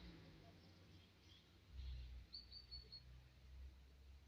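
Near silence with faint, short bird chirps, including a brief high trill about halfway through, over a low rumble.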